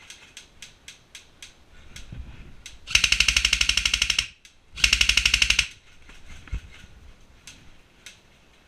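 Airsoft electric rifle firing two full-auto bursts of about a second each, half a second apart, at about fifteen shots a second. Faint scattered ticks come before and after the bursts.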